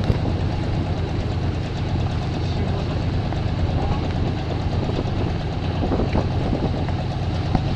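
Fishing boat's engine running with a steady low drone, with a few faint knocks of gear on deck.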